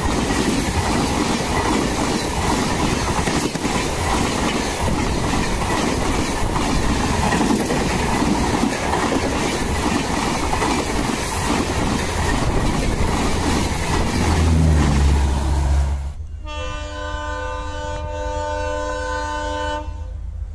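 LHB passenger coaches rush past close by, with a steady rolling roar and wheels clattering over rail joints. About sixteen seconds in, this cuts to a diesel locomotive's horn sounding one long, steady blast of about three and a half seconds.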